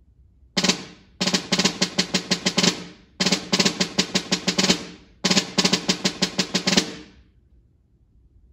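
Snare drum played with wooden sticks: a single stroke about half a second in, then three phrases of rapid strokes and rolls of about two seconds each, separated by short gaps, with accented strokes that ring out at the ends.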